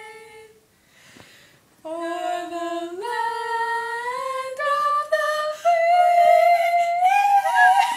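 A woman singing unaccompanied: after a held note fades and a short pause, she holds long notes that climb step by step, reaching a high, wavering note near the end.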